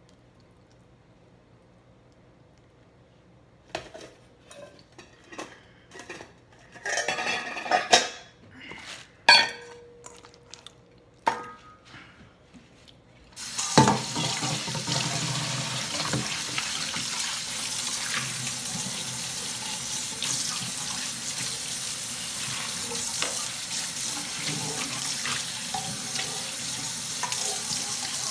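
Quiet at first, then several seconds of scattered knocks and clatter, then from about halfway a kitchen tap runs steadily into a stainless steel sink as raw chicken is washed under it.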